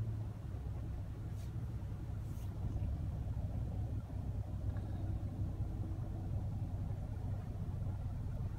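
Steady low rumble of a car's engine and tyres heard from inside the cabin while driving in city traffic.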